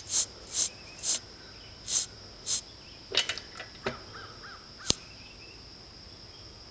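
Yamaha RD400 two-stroke engine being bumped slowly over by its kickstarter: a string of short, irregular scraping clicks over the first few seconds. About five seconds in comes one sharp snap, the spark jumping the gap of the grounded spark plug as the ignition fires.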